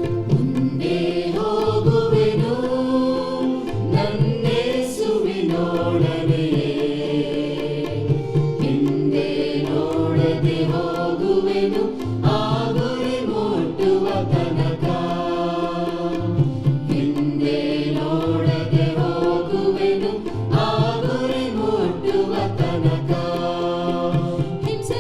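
Music with singing voices over instrumental accompaniment.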